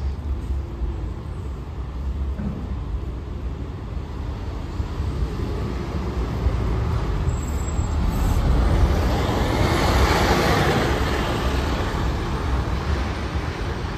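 Double-decker bus pulling away and passing close, its diesel engine and tyre noise building to a peak about two-thirds of the way through, then easing as it drives off, over a steady low traffic rumble.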